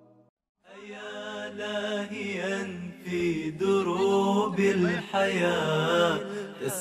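An unaccompanied Arabic nasheed, with voices chanting long, wavering melodic lines. It begins about half a second in, after a brief silence.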